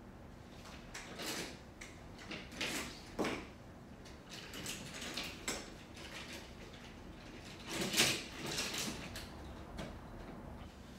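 Crossover Symmetry resistance bands and their clips being handled and swapped at the wall anchor: a string of short rustles and clacks, the loudest about eight seconds in.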